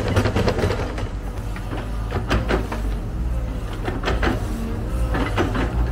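Diesel engine of a heavy machine running steadily, with four bursts of clattering and scraping spaced a second or two apart.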